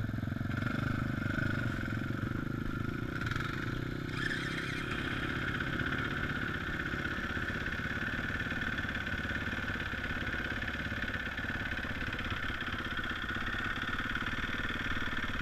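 Yamaha dirt bike's engine running at low, steady revs, first idling and then pulling the bike along slowly, with a change in its note about four seconds in.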